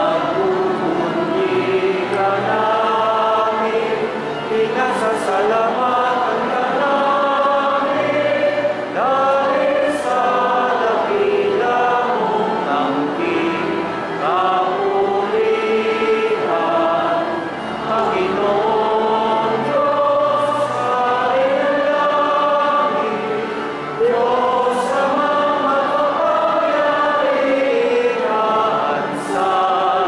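A church choir singing a hymn in phrases of a few seconds each, with brief breaks between them.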